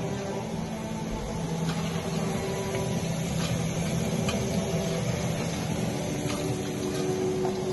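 Potato chips sizzling in hot oil in a wok as they are scooped out with a wire-mesh strainer, with a few light clicks of the metal strainer and spoon over a steady low hum.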